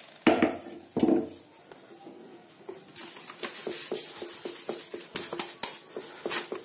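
Stainless steel sieve rattling against a steel bowl as it is shaken to sift ground roasted chana dal: two sharp metal clunks near the start, then a fast run of light rattling taps, about five a second.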